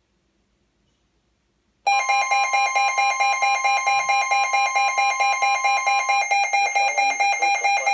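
Emergency Alert System alert tone starting abruptly about two seconds in after near silence: a loud, harsh electronic tone of several steady pitches, pulsing about four times a second, signalling the start of a new weather warning broadcast.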